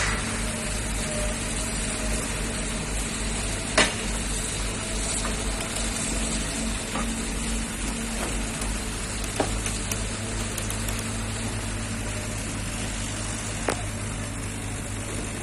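Crawler crane's diesel engine running steadily: a constant low hum under an even hiss. A few sharp knocks come through, the loudest about four seconds in.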